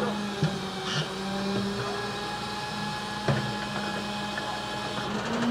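Garbage truck engine running with a steady hum, with a few short knocks as the load is handled; the sharpest knock comes about three seconds in.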